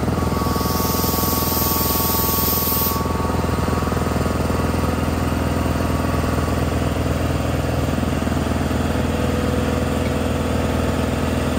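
A 115-volt MCH3 high-pressure air compressor running steadily with a fast, even mechanical pulse, just after being switched on to fill a bottle from 150 toward 300 bar. A hiss of air rides over it for the first three seconds or so and then cuts off sharply.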